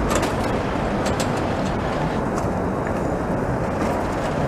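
Hong Kong double-decker electric tram rolling slowly along street track, a steady running noise with a few short clicks near the start and about a second in.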